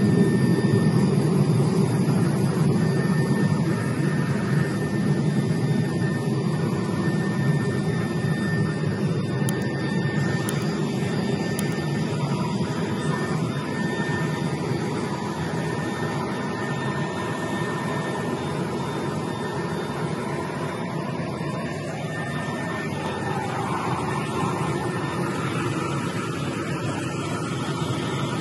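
Helicopter in flight heard from inside the cabin with the side door open: a loud, steady drone of rotor and turbine mixed with rushing air, with a faint steady high whine above it.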